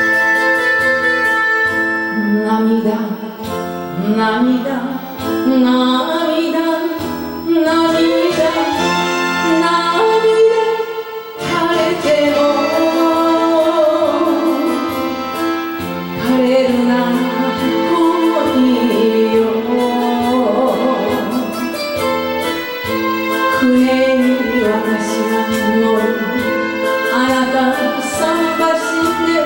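Enka karaoke music: a band arrangement with strings and a wavering, vibrato-laden lead melody, the full accompaniment coming in about eleven seconds in.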